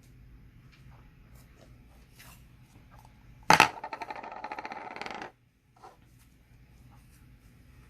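A small hard object drops onto a hard surface with a sharp clack, then rattles rapidly for under two seconds and stops abruptly as it settles, like a coin or a lid spinning down to rest.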